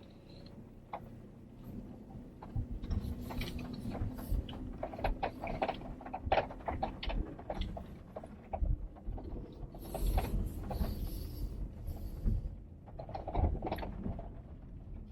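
Car driving slowly over a rough dirt track, heard from inside the cabin: a low engine hum under irregular knocks and rattles from bumps in the road.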